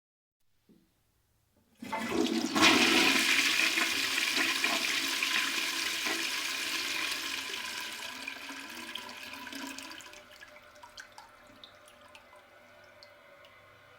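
Toilet flushing: after a faint click, a sudden rush of water starts about two seconds in and slowly dies away over the next eight seconds, ending in faint trickles and drips.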